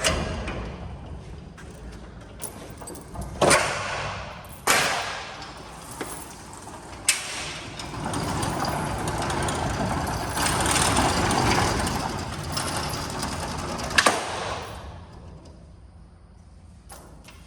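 Metal roll-up garage door being opened: sharp clanks, then a long rattling run as the door rolls up, ending in a clank before it fades.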